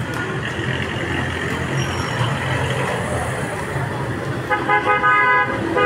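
Street traffic noise with a steady low rumble, and a vehicle horn sounding one long steady note for over a second near the end.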